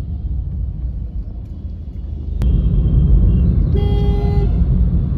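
Low road-traffic rumble of a motor vehicle, with one short car horn honk, a steady note held just under a second, about four seconds in.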